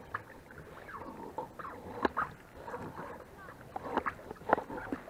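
Rowing an inflatable boat: irregular short creaks, knocks and splashes from the oars working in their oarlocks and dipping into the water.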